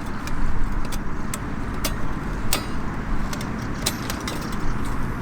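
Small wood campfire crackling, with irregular sharp pops and snaps, over a steady low rumble.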